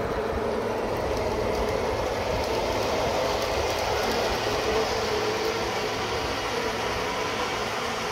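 G-scale model freight train rolling past on its track: the wheels of the hopper cars and caboose make a steady rolling rumble, which grows a little quieter as the train moves off around the curve.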